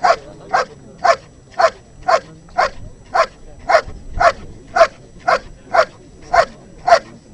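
A dog barking at a decoy standing in a hiding blind, short sharp barks evenly spaced at about two a second: the bark-and-hold of a protection-dog trial, the dog keeping the decoy in place by barking rather than biting.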